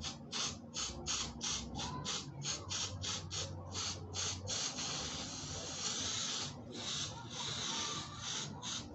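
Aerosol suede and nubuck spray hissing out of the can in short bursts, about three a second, with one longer spray of about two seconds in the middle, then short bursts again.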